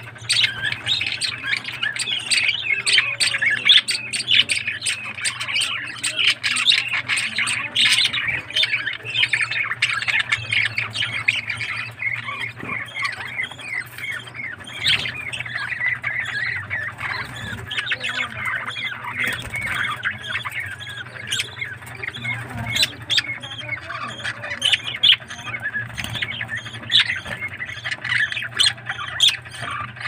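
A flock of budgerigars chattering and squawking without a break, many quick chirps and warbles overlapping.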